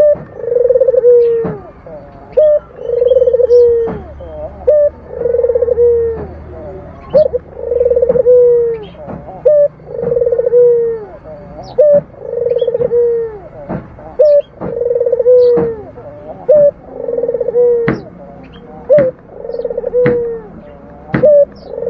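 Barbary dove (ringneck dove, the Indonesian 'puter') cooing over and over, about every two seconds: each call a short note followed by a longer, purring coo.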